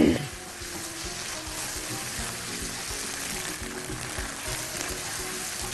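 Soft background music over the steady sizzle of minced sausage and tomato sauce frying in a pan as it is stirred.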